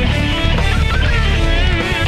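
Loud rock music led by electric guitar, with a bending melody line over a heavy, steady low end.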